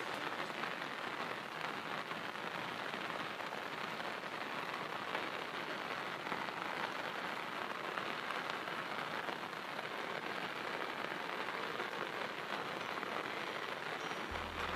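Heavy rain falling steadily, an even hiss of downpour that does not let up.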